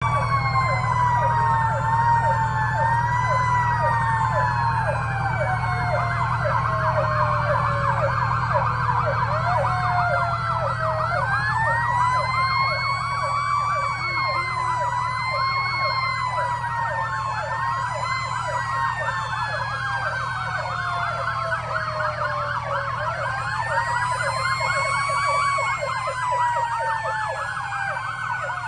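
Several emergency vehicle sirens sounding at once, slow wails rising and falling over a few seconds overlapping with fast yelps, over a steady low engine hum.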